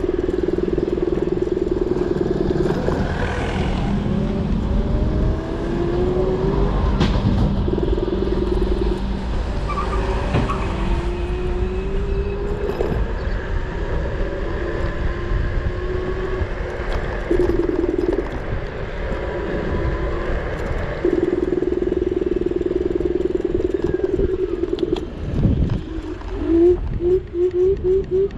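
Dualtron Mini electric scooter's hub motor whining under way. The steady tone comes and goes with the throttle and rises in pitch as the scooter speeds up, over a constant rumble of wind and tyres on the road. Near the end there is a quick run of short rising whines.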